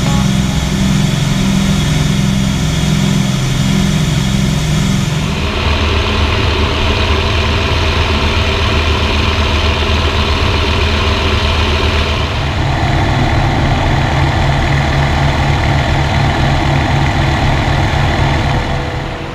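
WWII fighter piston engines heard from inside the cockpit in flight, a loud steady drone with propeller noise. About five seconds in it changes to a deeper drone, the cockpit sound of the F4U-4 Corsair's Pratt & Whitney R-2800 radial engine. About twelve seconds in it shifts again.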